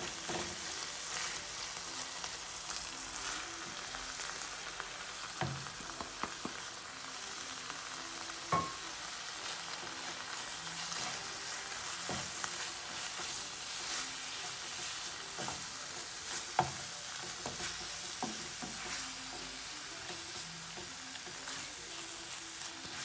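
Ground beef with spices sizzling in a non-stick frying pan while being stirred with a wooden spoon, a steady hiss broken by occasional knocks of the spoon against the pan.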